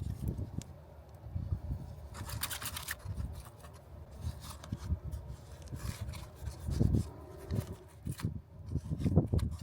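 Irregular scraping and rubbing with soft low thumps, with a short bright rasping burst about two seconds in and another near six seconds.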